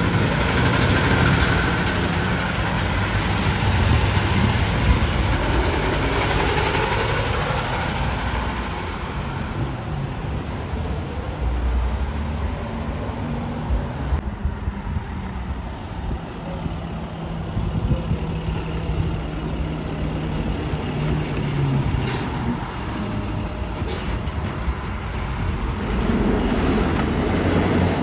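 Heavy trucks and other road traffic passing. Engine and tyre noise swells and fades as vehicles go by: loudest at the start, easing in the middle, and building again near the end.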